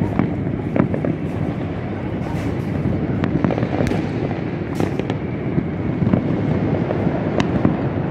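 Fireworks going off in the distance all over a city: a dense, continuous crackle of pops and bangs, with a sharper crack standing out every second or so.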